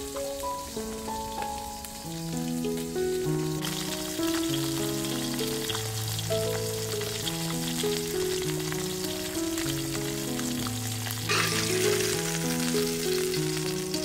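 Background music, a slow melody of held notes, over a steady sizzle of food cooking that comes in about four seconds in and is loudest near the end.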